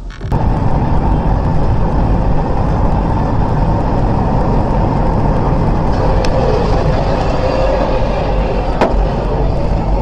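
Steady road and engine noise inside a car driving at highway speed, picked up by a dashcam, with two brief sharp clicks in the second half.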